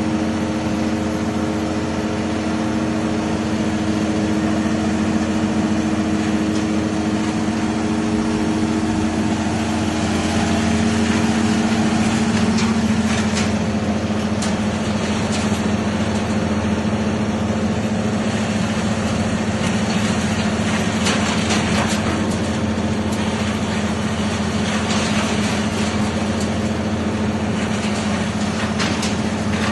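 Wood chipper running with a steady engine drone; from about halfway through, irregular crackling and snapping as wood is fed in and shredded.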